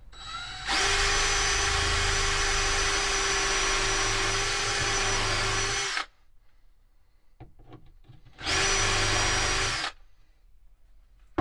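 Cordless drill running at a steady speed into a wooden bed board: one long run of about five seconds, then a shorter burst of about a second and a half near the end.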